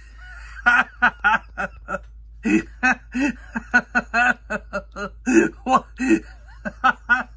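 A person laughing: a long run of short chuckles, several a second.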